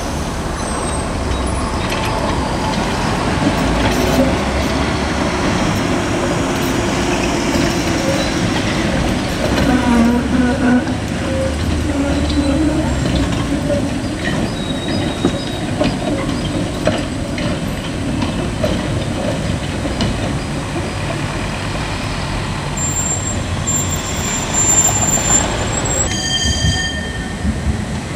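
City trams running through a junction on curved track: steady wheel and motor rumble with scattered clicks. Near the end come thin, high-pitched wheel squeals from the curve.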